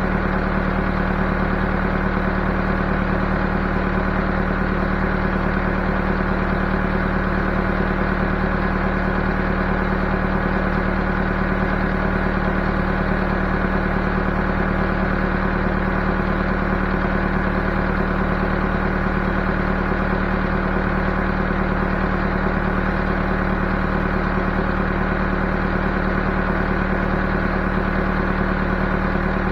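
Backhoe's diesel engine running at a steady, unchanging speed.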